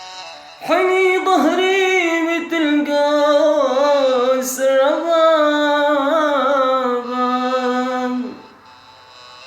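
A man singing one long, ornamented phrase in the style of a rababa song, his voice wavering and turning through many small pitch bends. It starts about half a second in and fades out near the end.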